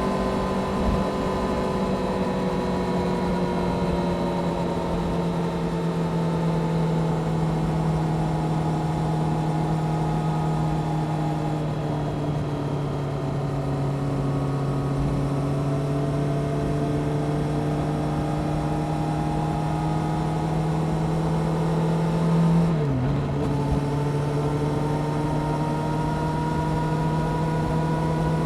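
Honda CBR600F Sport inline-four engine with a Delkevic exhaust running at a steady cruise, its pitch easing slowly down with wind rushing past. About 23 seconds in the pitch dips sharply for a moment, then climbs slowly again.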